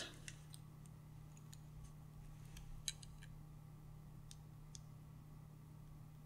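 Near silence: room tone with a low steady hum and a few faint scattered clicks, the clearest about three seconds in.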